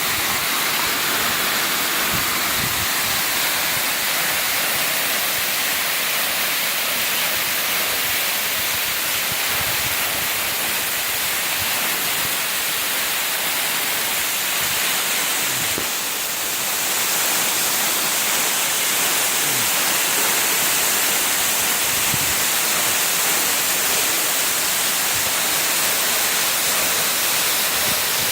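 Waterfall pouring in a steady, even hiss of falling water, with a brief dip about halfway through.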